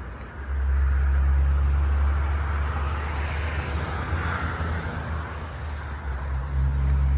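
Distant road traffic: a steady low rumble with a hiss that swells and fades, like a vehicle passing, loudest about four seconds in.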